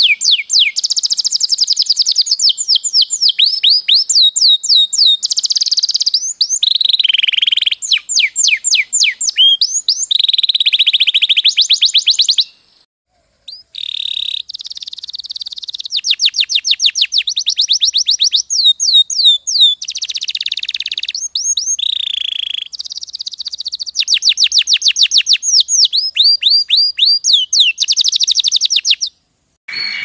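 Domestic canary singing a long, fast song of high trills and rapid rolls of repeated notes, with a brief break about twelve seconds in and another just before the end.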